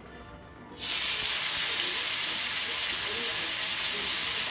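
A piece of masala-marinated pomfret hits hot oil in a frying pan and the oil breaks into loud sizzling less than a second in, then keeps frying with a steady sizzle.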